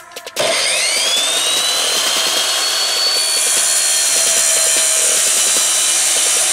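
A 10-inch compound miter saw fitted with a metal-cutting blade starts up about half a second in, its whine rising as the motor spins up. It then cuts steadily through metal flat bar, giving a loud, continuous grinding screech.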